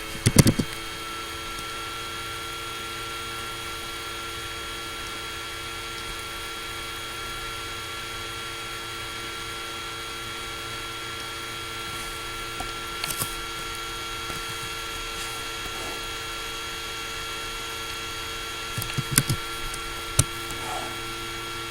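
Laptop cooling fan running steadily with a high whine, heard loud through the laptop's built-in microphone. A few sharp clicks break through about half a second in, in the middle and again near the end.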